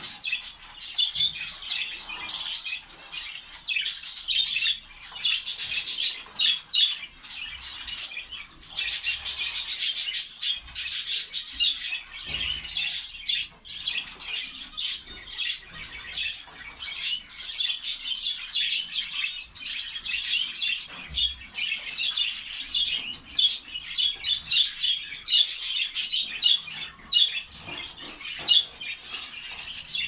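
A flock of zebra finches calling non-stop: many short, high chirps overlapping in a dense, busy chatter, with a few rapid buzzy phrases in the middle.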